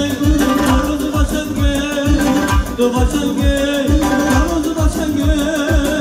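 Live band music with singing over a steady drum beat of about three strikes a second.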